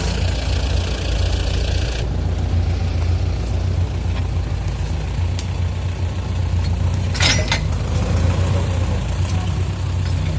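T-40AM tractor's air-cooled diesel engine running steadily, with a brief clatter about seven seconds in.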